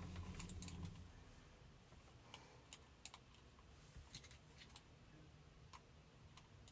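Faint, scattered light clicks and taps of small screws and a screwdriver handled against the plastic underside of a computer mouse, irregular, a few a second at most.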